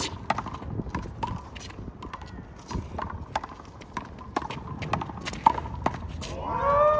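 A handball rally: a small rubber handball slapped by hand and smacking off the wall and court, a string of sharp knocks at an uneven pace of about one or two a second, each with a short ring.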